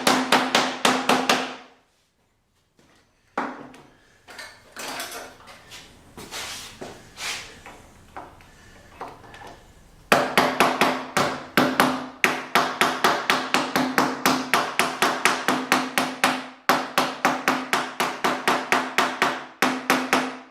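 Fast hammer taps, about four to five a second, driving a cabinet-door hinge's press-in pegs into their drilled holes. A pause about 2 seconds in holds softer, irregular knocks, then a second long run of taps starts about halfway through.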